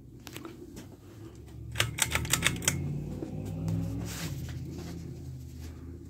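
1997 Harbor Breeze Cheshire 52-inch ceiling fan running with a steady low motor hum. A quick run of sharp clicks, about seven in under a second, comes about two seconds in.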